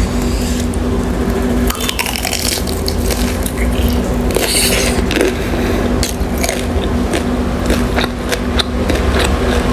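Close-miked chewing and mouth sounds of someone eating dim sum: many short wet clicks and smacks, with a louder burst about halfway through, over a steady low hum.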